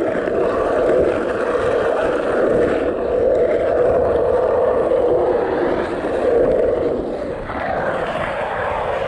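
Skateboard wheels rolling steadily over the track surface, a continuous rumble that eases off slightly near the end.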